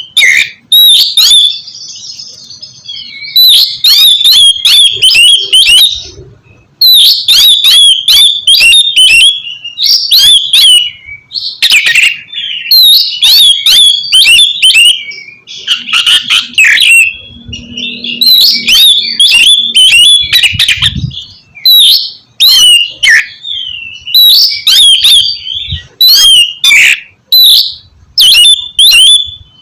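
Oriental magpie-robin (kacer) singing loudly in fast runs of sharp whistled and harsh notes, broken by brief pauses.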